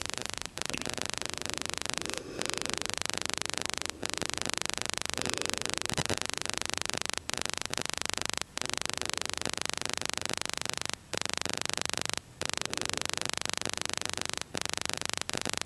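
Steady hiss of an open telephone line on hold while the call is transferred, broken by about ten brief dropouts to silence.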